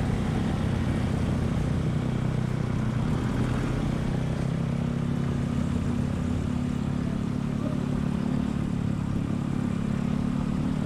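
Motorcycle engine running at a steady pitch while riding in slow traffic.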